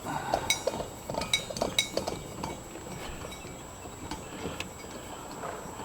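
Small metal parts clinking and tapping together as a brass hose fitting is unscrewed from a cylinder and handled. There is a quick run of sharp, ringing clinks in the first two seconds, then a few scattered ones.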